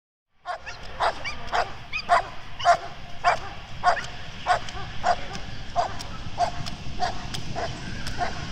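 A dog barking in a steady, even rhythm, about three barks every two seconds.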